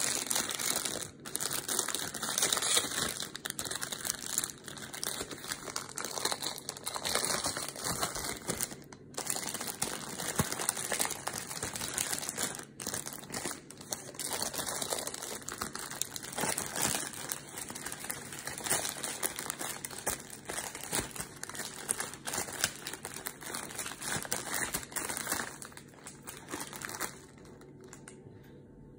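Close-miked crunching and chewing of a raw vegetable salad (cucumber, tomato and red bell pepper), a dense crackle of many small crunches that stops shortly before the end.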